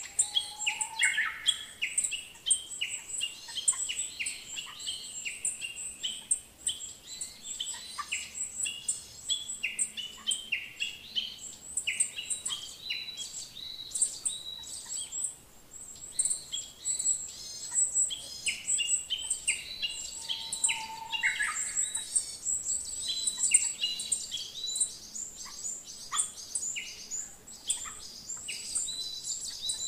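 Birds chirping: a dense chorus of many short, high calls overlapping throughout.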